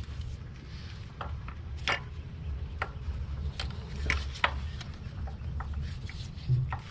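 Light scattered clicks and taps of a VVT solenoid being fitted back into the engine by hand, about half a dozen in all, over a steady low rumble.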